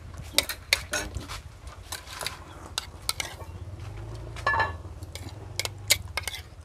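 Metal spoon clinking and scraping against a ceramic plate while eating, in repeated short, sharp clinks.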